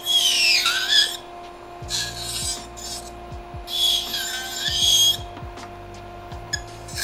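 Electric nail file's spinning bit grinding an acrylic nail in three screechy, whistling bursts. The nail is on a hollow plastic practice hand, which makes the filing loud. A steady mechanical hum runs underneath.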